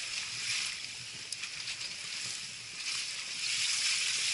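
Water sloshing and broken slush ice churning as a person in a flotation suit thrashes in a hole in rotten spring lake ice, growing louder near the end.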